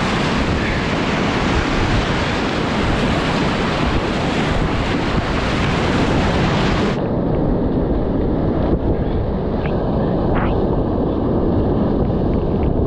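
Loud, steady rushing roar of whitewater rapids around a kayak running a big drop. About halfway through the sound suddenly turns muffled as its hiss cuts out.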